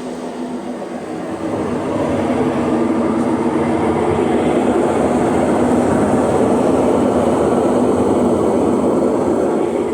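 Brastemp BWL11 washing machine running with a loud, steady mechanical noise that swells about two seconds in and eases near the end: the noise of a broken transmission (gearbox).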